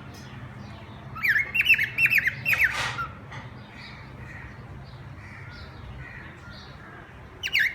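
Pet parrots squawking in their cage: a rapid string of sharp, harsh calls for about a second and a half, then quieter, with the squawking starting again near the end.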